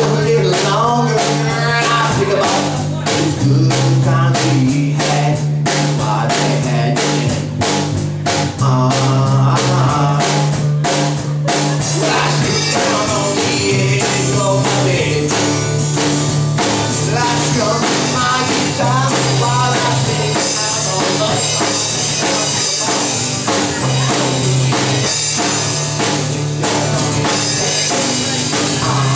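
Live rock band playing: acoustic-electric guitar, electric bass and drum kit, with a man singing in places. Steady drum beat and prominent bass notes throughout, with cymbals ringing more in the second half.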